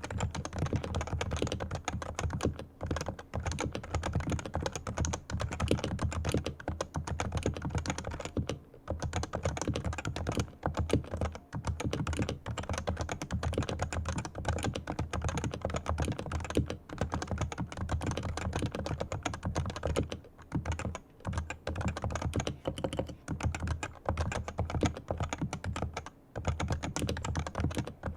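Leopold FC980C Topre electrostatic capacitive keyboard, fully lubricated, being typed on quickly and continuously: a dense run of keystrokes broken by a few short pauses.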